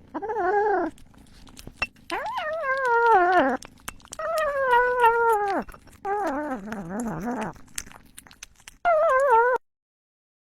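A pet animal giving five drawn-out calls in a row, each with a wobbling, mostly falling pitch. The middle three are long and the first and last are short; the last one cuts off suddenly.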